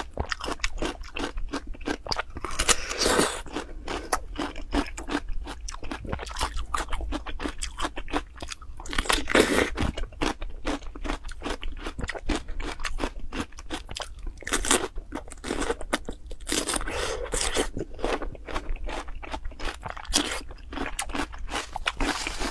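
Close-miked eating: rapid crisp crunches from biting into and chewing crunchy food.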